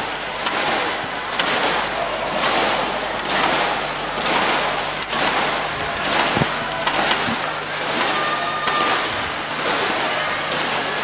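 Large badminton arena crowd making a steady, loud roar of cheering that surges about once a second.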